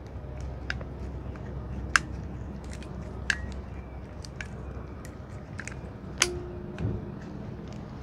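Small clicks and taps of metal from brake pads being pushed and worked loose inside a Honda Rebel 1100's four-piston front brake caliper by hand, with three sharper clicks among them and a dull knock near the end.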